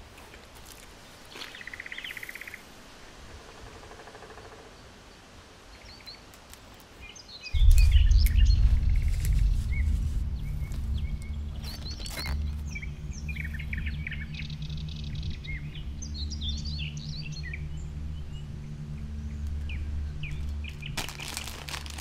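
Birds chirping and calling. About seven and a half seconds in, a loud low droning rumble starts and runs on under the birdsong.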